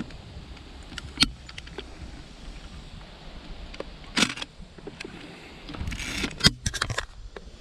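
Zenit 212K 35 mm SLR taking a picture: a sharp mechanical clack of the shutter and mirror about four seconds in, with a small click before it and a longer clattering stretch of camera handling near the end.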